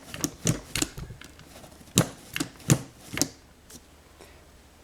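Sharp clicks and knocks of a Thomas Wooden Railway Byron the Bulldozer toy being handled, its plastic and wooden parts clacking. About nine irregular clicks come over the first three seconds, then they stop.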